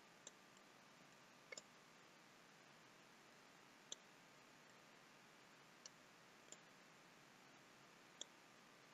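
Near silence with scattered faint computer mouse clicks, about six, one of them a quick double click about a second and a half in.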